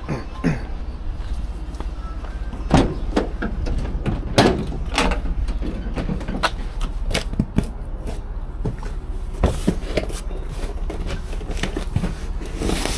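Irregular knocks, clicks and clatter from handling things by hand, over a steady low rumble.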